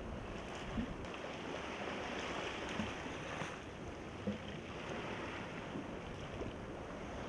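Steady hiss of the sea lapping at a pebble beach, with a few faint clicks of pebbles shifting.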